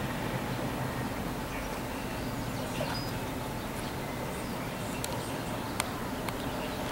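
115-series electric train running, a steady low hum with a few sharp clicks about five to six seconds in.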